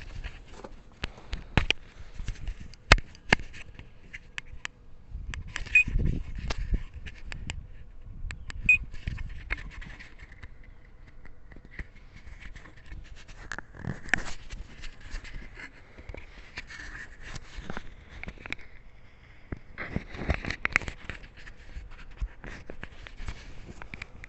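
Irregular clicks, knocks and scrapes of hands and tools working in a car's engine bay.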